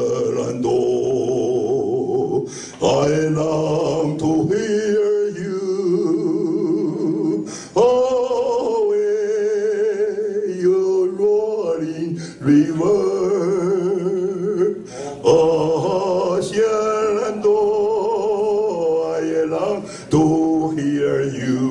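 An older man singing solo into a handheld microphone, holding long notes with a wavering vibrato, in phrases of a few seconds with brief breaths between them.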